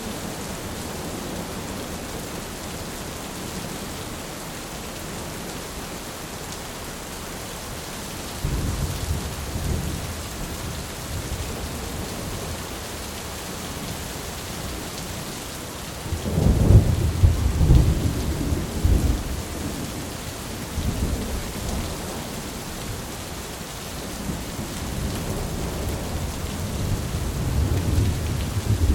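Steady heavy rain with thunder rolling in: a low rumble about a third of the way in, a louder crackling peal just past the middle, and another rumble building near the end.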